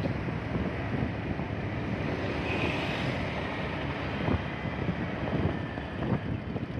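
Wind noise buffeting the microphone of a moving motor scooter, over the running engines of the scooter and the motorbikes riding around it.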